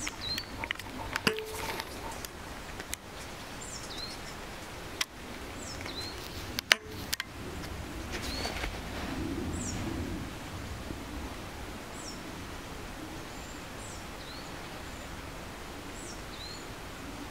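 A bird calling over and over outdoors: a short high downward whistle followed by a brief rising note, repeated about every two seconds. A few small clicks come early, and one sharp crack, the loudest sound, comes about a third of the way in.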